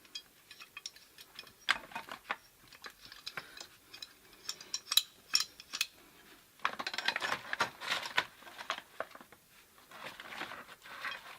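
Metal tools and pipe fittings being handled: scattered clicks and clinks, with a busier run of clinking and scraping a little past the middle.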